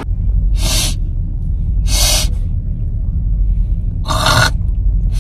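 Steady low rumble of a car on the move, heard from inside the cabin, broken by three short hissing bursts.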